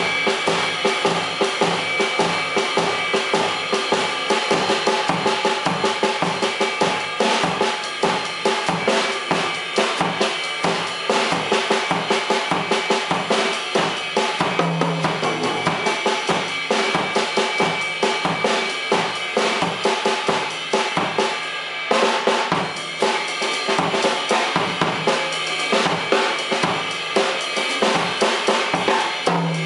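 Tama Starclassic Performer drum kit played in a steady funk groove: bass drum, snare with rimshots and cymbals in a dense, even pattern. A brief drop about three quarters of the way through is followed by a loud accent, and the groove carries on.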